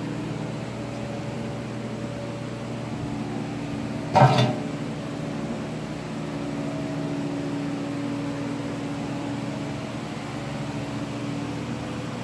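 Aquarium pumps and filtration equipment humming steadily with a low drone, with one short loud bump about four seconds in.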